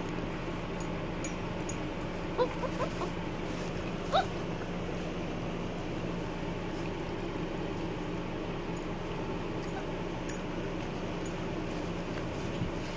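German Shepherd puppies, six weeks old, chewing and tearing at raw meat, with a few short, high rising whimpers in the first few seconds, over a steady low hum.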